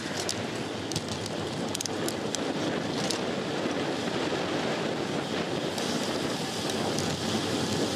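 Wind rushing over a bicycle's handlebar-mounted camera microphone, with tyre noise from a road bike rolling at speed on pavement; a few faint clicks in the first few seconds.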